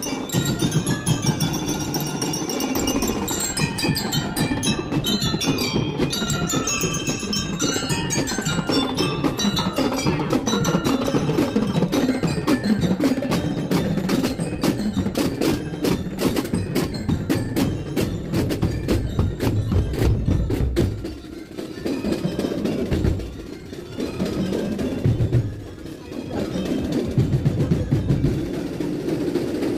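Marching parade band music: a glockenspiel melody over fast, dense drumming.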